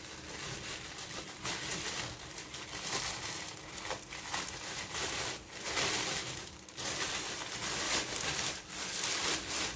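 Plastic courier mailer bag crinkling and rustling in uneven bursts as it is torn open and its contents are pulled out.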